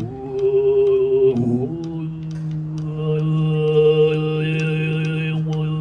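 Tuvan throat singing in the sygyt style: one voice holds a steady low drone while a thin, whistle-like overtone melody sounds high above it, stepping between notes.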